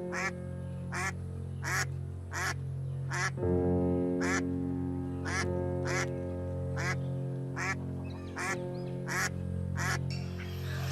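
A duck quacking over and over, a short quack about every three quarters of a second, more than a dozen in all, over calm background music with held chords.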